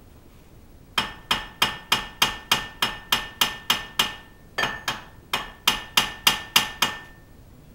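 Hammer striking metal on the underside of a Suzuki Wagon R: about twenty sharp, ringing blows, roughly three a second, with a short break about halfway through.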